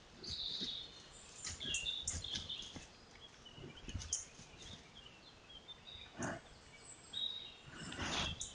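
Small forest birds chirping while a brown bear pads over leaf litter and sniffs at a tree trunk, with two short breathy snuffles about six and eight seconds in, the second the louder.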